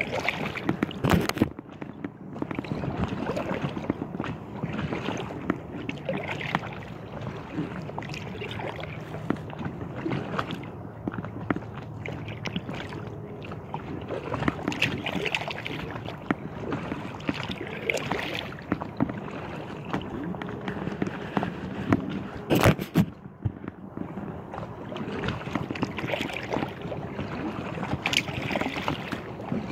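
Choppy lake water sloshing and slapping against the hull of an Aqua Marina inflatable kayak, with two sharp knocks, one about a second in and one about three quarters of the way through.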